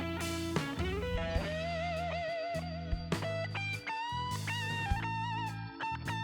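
Background music: an electric guitar playing bluesy lead lines with bends and vibrato over a bass line.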